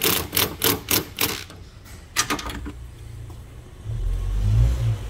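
A hand ratchet on a 10 mm socket clicks in quick, even strokes, about four a second, while it loosens the nut on a car battery's ground terminal, then clicks twice more a little after two seconds. Near the end a loud low rumble rises and fades.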